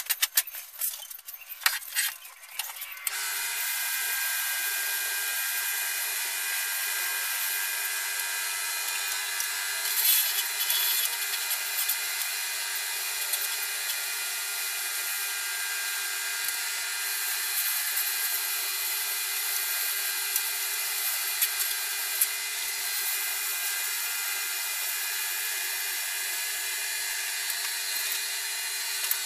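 Small wood lathe started after a few clicks and knocks about three seconds in, then running steadily with a steady hum, spinning a wooden pen blank while abrasive paper is held against it for sanding.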